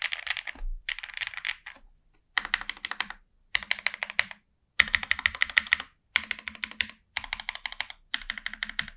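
Jris65 mechanical keyboard with lubed SOTC linear switches and GMK keycaps being typed on in quick runs of keystrokes, about eight bursts with brief pauses between them.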